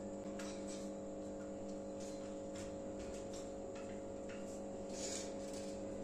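Caged lovebirds giving short, sharp chirps, scattered irregularly a second or so apart, over a steady low electrical hum.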